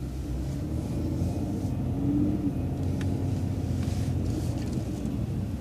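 Transit bus engine and drivetrain rumbling steadily as the bus makes a left turn, with a faint pitched whine that rises a little partway through.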